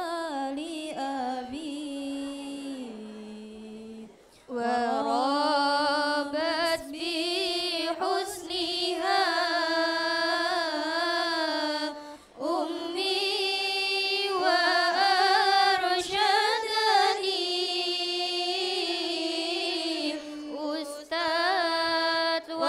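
A group of young women singing lalaran, Arabic didactic verses, in unison to a winding, ornamented melody. The singing breaks off briefly about four seconds in and again about twelve seconds in.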